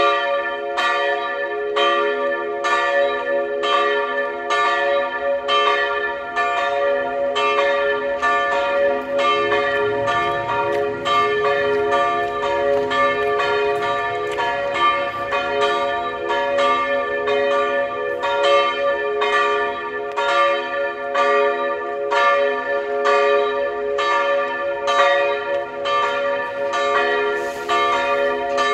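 Two historic church bells, tuned b′ and d″, ringing together in full peal to call to mass. Their strikes come in a steady train, each note ringing on into the next.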